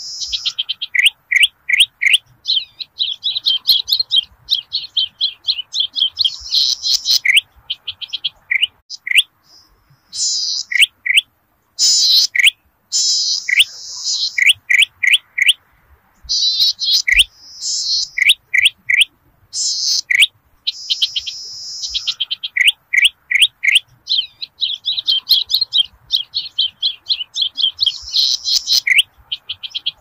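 Cisticola (citruk / cici padi) song played as a bird-lure call: rapid series of high, sharp ticking notes alternating with dense, buzzy trills, repeated over and over with short pauses.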